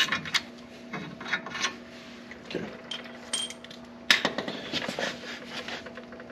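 Metal hand tools and brake caliper hardware clinking and knocking while the caliper is taken loose. The knocks are scattered, with a louder burst of clatter about four seconds in, over a faint steady hum.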